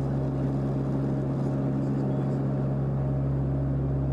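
Airplane in flight: a steady engine drone with a strong low hum and a few fainter steady tones above it, unchanging throughout.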